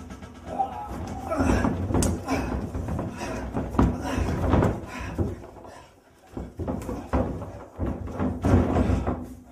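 Irregular thuds and slams of wrestlers' bodies hitting the ring mat, with short bursts of voice between them and a brief lull about six seconds in.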